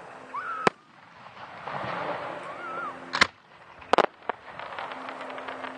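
Fireworks shells bursting: sharp bangs about half a second in and about three seconds in, then a quick double bang and a smaller pop, followed by faint crackling.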